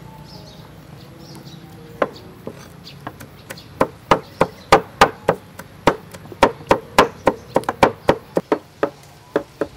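Cleavers chopping chicken and garlic on wooden chopping boards: a quick run of sharp knocks that starts about two seconds in, roughly three or four strokes a second.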